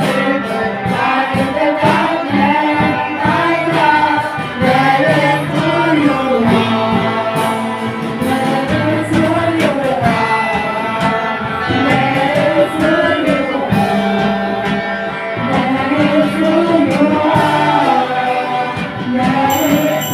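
A group of people singing a song together over instrumental accompaniment with guitar. High ringing tones come in near the end.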